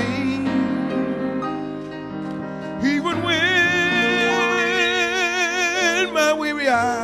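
Gospel song with a man singing and sustained keyboard chords. About three seconds in he holds one long, loud note with a wide, even vibrato over the chords.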